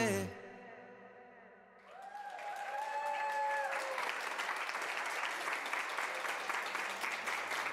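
A crowd of onlookers clapping and cheering, swelling in about two seconds in after a brief hush, with a long drawn-out whoop rising over the clapping in the first couple of seconds of it.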